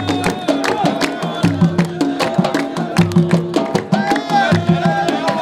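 Wedding music: a fast drum rhythm of many sharp strokes under a held, steady melody line.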